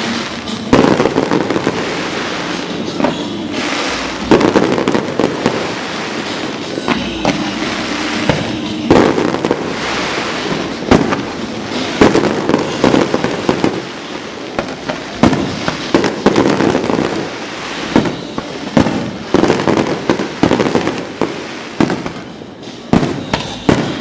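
Aerial fireworks bursting in quick succession, with many sharp bangs and continuous crackling.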